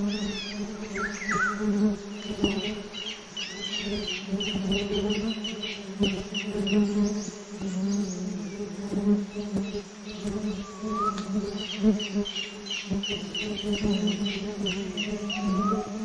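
A swarm of wasps buzzing around their nest in a steady low drone as an oriental honey buzzard raids it. Small birds call over it in quick, high repeated chirps.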